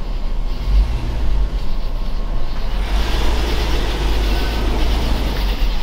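Pickup truck under way, heard from inside the cab: a steady low rumble of engine and road noise.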